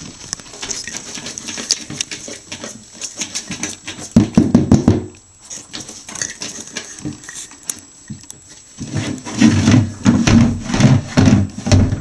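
Upturned plastic washing-up bowl being pushed across a vinyl floor by a ferret underneath it: rapid light clicks and patter with scraping and knocking, louder about four seconds in and again near the end.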